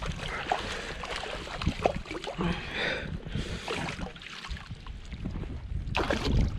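Water splashing and sloshing in short, irregular bursts as a trout thrashes in a landing net drawn in at the bank, with wind rumbling on the microphone.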